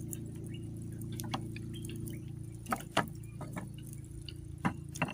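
Whole conch shells being set down on a metal grill rack, knocking against the bars with several sharp clacks a second or so apart, over a steady low hum.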